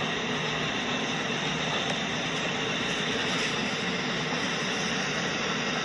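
LEGO toy trains running on plastic track: a steady whirring from their small electric motors and wheels, holding an even level throughout.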